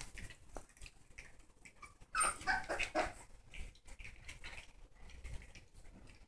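Puppies giving a quick run of short, high cries about two seconds in, amid faint small clicks and scuffling.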